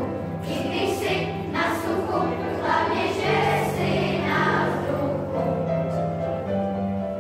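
Children's choir singing together over an accompaniment with a steady, held bass line.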